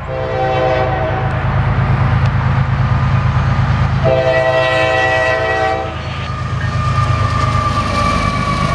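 Norfolk Southern diesel freight locomotives approaching a grade crossing, sounding their horn in two long blasts, the crossing warning, over the low rumble of the diesel engines. Near the end the lead locomotive passes close by with wheel noise on the rails and a single high tone.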